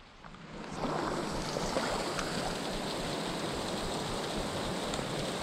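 Heavy rain spattering on the surface of a swollen river, mixed with the rush of the flowing water: a steady hiss with scattered drop ticks. It fades in over about the first second.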